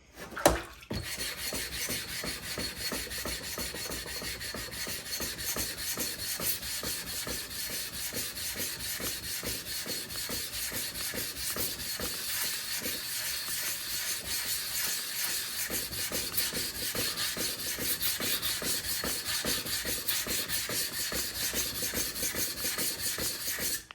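Diamond flattening plate rubbed back and forth over a wet whetstone in steady, rapid strokes, a continuous rasping that grinds the stone's surface flat.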